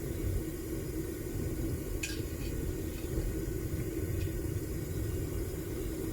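Homemade propane furnace burner running with a steady rumble while heating a crucible of brass, with a light click about two seconds in.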